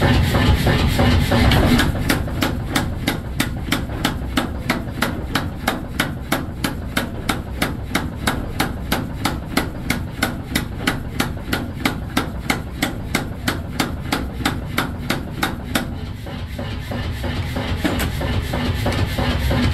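Power hammer striking a red-hot steel bar in rapid, even blows, about three a second. The blows start about two seconds in and stop about four seconds before the end, with a steady machine rumble before and after them.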